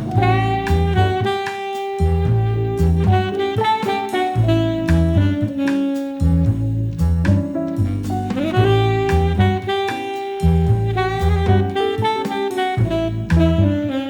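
Background jazz music with saxophone over a bass and drum groove.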